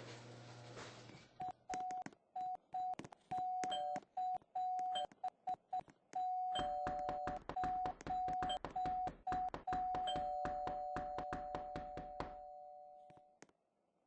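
Electronic beeping: a steady tone switched on and off in short and long notes, with a click at each, and a second slightly lower tone joining about halfway. The beeping fades out near the end.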